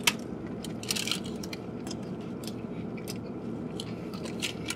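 Two men biting into and chewing burgers: scattered short clicks of mouths and food, thickest about a second in, over a low steady hum.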